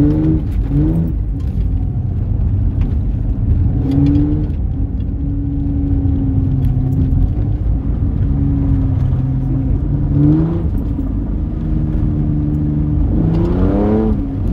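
Vehicle engine heard from inside the cab while driving a dirt road, over a steady low rumble from the tyres. The engine's pitch climbs as it accelerates at about the start, around 4 seconds, around 10 seconds and in a longer climb near the end, and holds steady in between.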